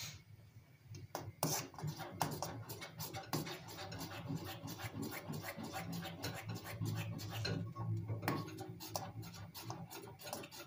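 A metal spoon stirring chocolate sauce in a small stainless-steel cezve, with rapid, irregular clinks and scrapes against the pot's sides and bottom.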